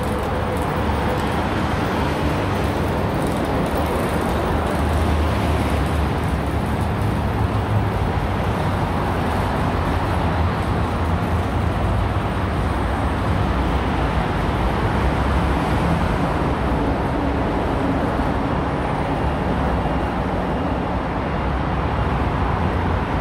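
Suburban train pulling slowly into a station platform and coming to a stop: a steady, loud low rumble of motors and wheels.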